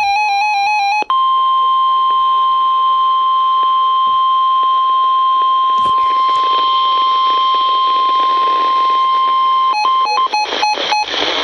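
NOAA Weather Radio warning alarm over a weather radio's speaker, with static hiss. A burst of warbling, stepping data tones ends about a second in, and a steady 1050 Hz alert tone follows. Near the end the tone breaks up into short choppy beeps.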